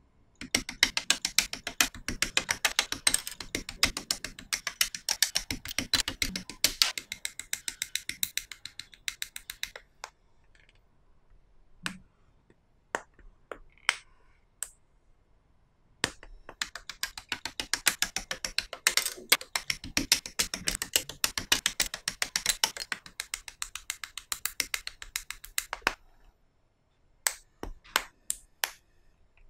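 Small plastic model-kit parts clicking rapidly in the fingers as they are worked, in two long runs of several seconds each. A few separate plastic clicks and snaps fall between the runs and near the end.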